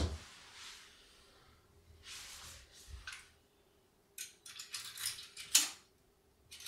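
Small clicks and taps of hands handling a plastic put-put boat toy while fitting its lit candle in place, the loudest tap about five and a half seconds in. Before that, only a few soft rustles.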